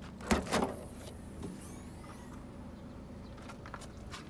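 Nissan Dualis tailgate being unlatched and opened: two quick clunks close together about half a second in, then quieter.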